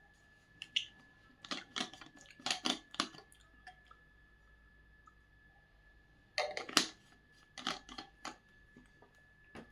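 Scattered short clicks and light knocks in small clusters, the loudest about two-thirds of the way through, over a faint steady high-pitched whine.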